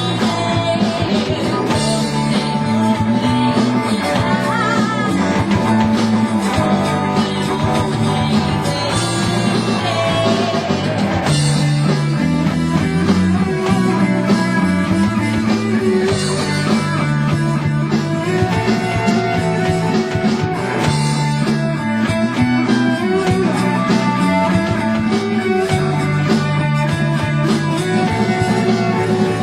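A rock band playing live: electric guitars over a steady, repeating bass line and drums, with a voice singing.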